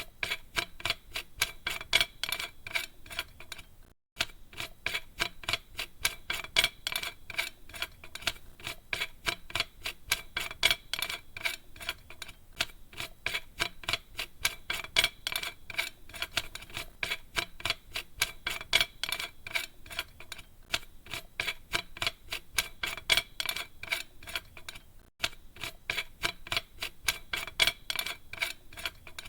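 A heavy metal cap being screwed onto a threaded fitting: a fast, continuous run of small metallic clicks and scrapes from the threads turning, broken by two brief pauses, one about four seconds in and one near the end.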